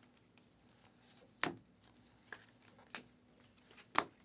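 A stack of Panini Donruss basketball trading cards being flipped through by hand: four sharp snaps of card edges, about a second apart, the last the loudest.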